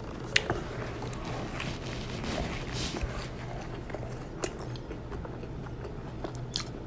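A person chewing and biting food close to the microphone, mouth sounds with a few sharp crunchy clicks. The food is tacos.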